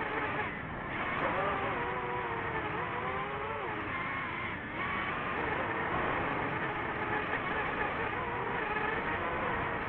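DJI FPV drone's motors and propellers whining steadily, the pitch rising and falling with the throttle, with two brief dips, about half a second in and near the middle.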